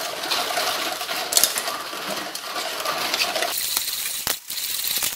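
Green plastic ladle stirring and scraping a thick chocolate agar-agar pudding paste around an aluminium pot: a continuous scraping with small knocks against the pot, broken briefly about four seconds in.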